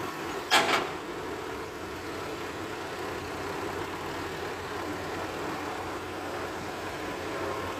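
Dump truck and excavator diesel engines running steadily, with a dump truck moving close by. A short, loud burst of noise comes about half a second in.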